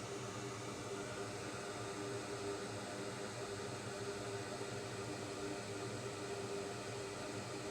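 Steady whirring of a small fan with a constant hum underneath, unchanging throughout.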